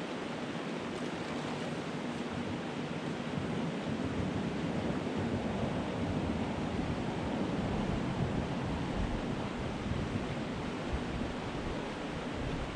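Creek water rushing steadily over a riffle, with a low wind rumble on the microphone that grows a few seconds in.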